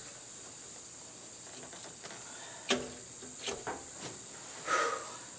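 Loosened cast-iron engine manifold being shifted by hand: a sharp metal click about halfway through, two lighter ticks just after, and a short scraping clunk near the end, over a steady high-pitched hiss.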